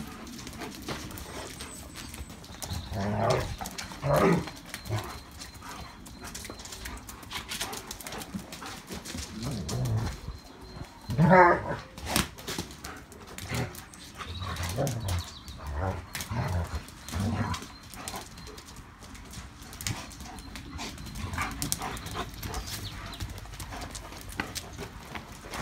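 German shepherds playing rough together, with growls and a few short barks; the loudest call comes about eleven seconds in.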